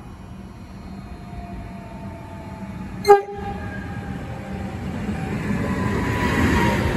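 A train approaching through a railway station, its rumble growing steadily louder, with one very short horn toot about three seconds in.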